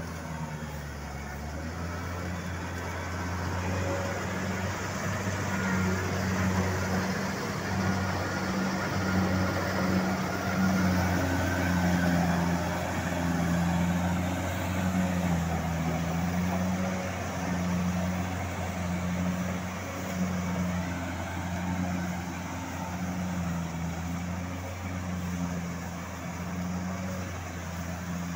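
Kubota combine harvester's diesel engine running under load while it harvests, a steady low drone that wavers slightly. The engine is pouring black smoke, which the uploader takes for an engine fault.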